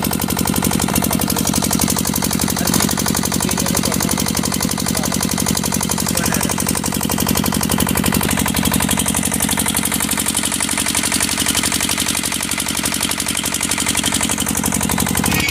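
An engine running steadily close by, with a fast, even thumping.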